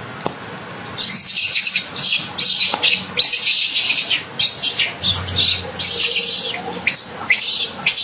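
Baby monkey giving a rapid series of shrill, high-pitched squeals and chirps, starting about a second in.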